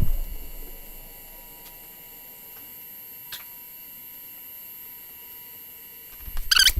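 Low steady hum and faint high whine of room tone, with a dull thump at the very start and a few faint clicks.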